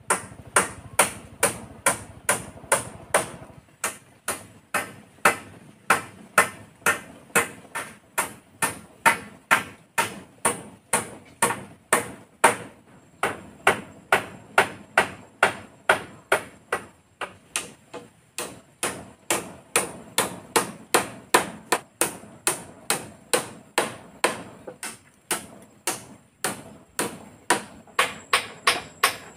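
Hammer nailing bamboo and wooden poles onto a pole-frame shelter: a steady run of blows, about two or three a second, each with a high metallic ring, broken by a few short pauses.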